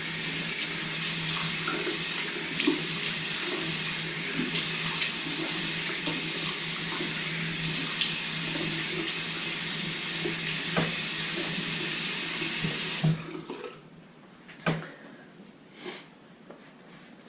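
Bathroom tap running into a sink for rinsing, a steady rush of water that stops suddenly about thirteen seconds in. It is followed by a sharp knock and a few soft handling sounds.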